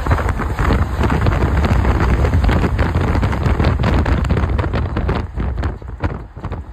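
Wind buffeting a phone microphone from a moving car, with road and vehicle noise underneath. It eases off and turns choppier about five seconds in.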